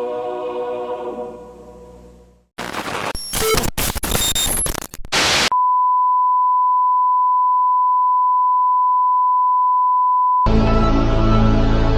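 Music fades out, then a burst of loud static with crackles and dropouts lasts about three seconds, followed by a steady 1 kHz test tone held for about five seconds: the off-air tone of a broadcast that has signed off. New music cuts in over the tone near the end.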